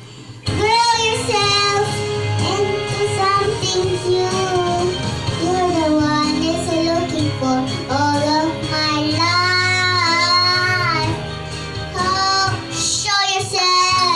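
A young girl singing into a corded microphone over a karaoke backing track, starting about half a second in and holding long notes.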